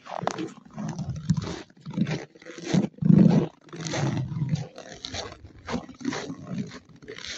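Dachshund growling in a run of rough, irregular bursts, about one every half second to a second, the loudest a little past the middle.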